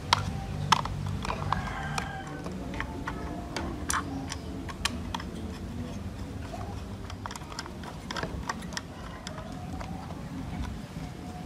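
Sharp plastic clicks and taps as a security camera's plastic base cover is pressed into place and screwed down with a screwdriver. They come in quick irregular clicks, several in the first five seconds, then sparser.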